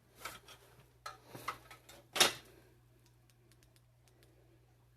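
Rustling and knocking handling noises, with the loudest short scrape about two seconds in, then a few faint ticks, over a steady low hum.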